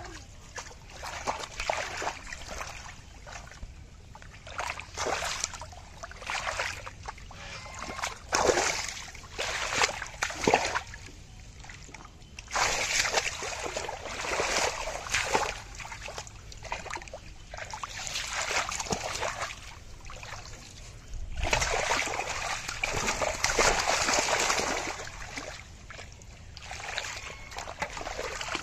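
Irregular splashing and sloshing in shallow muddy water as fish are chased and grabbed by hand, with two longer, louder spells of splashing, one about halfway through and one near the end.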